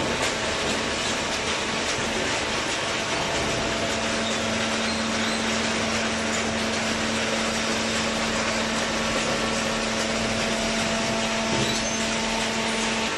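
Hydraulic baling press running steadily: its motor and pump give a continuous mechanical noise with a steady hum that comes in about three seconds in.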